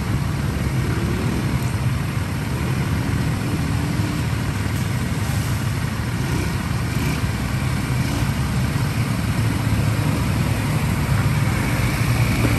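An ATV's engine running steadily, with no change in pitch or level.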